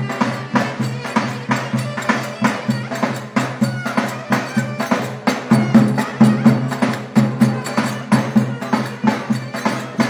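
Live Turkish folk dance music: a davul drum beating a fast, even rhythm with sharp clicking hand percussion over a clarinet melody.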